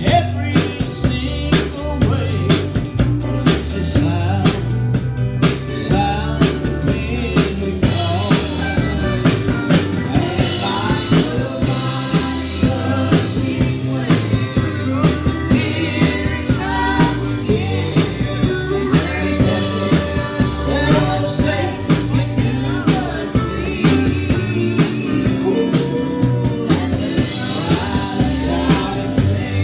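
Live band performing a gospel song: a drum kit keeps a steady beat under the band. Voices come in singing about six seconds in.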